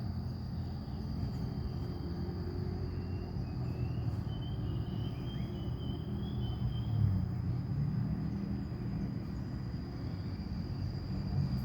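Outdoor ambience: a steady, high insect drone over a low, wavering mechanical rumble, with faint chirps a few seconds in.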